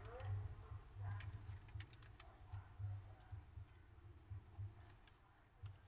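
Faint scattered clicks and taps of a smartphone being handled and set down, over an uneven low rumble.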